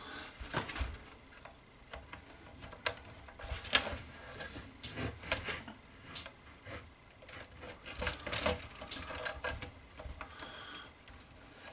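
Two wooden boards, the top plate of a DIY turntable, scraping and knocking against each other as the plate is slid and turned to seat it over a centre bolt. The sound is a run of irregular knocks, clicks and short scrapes.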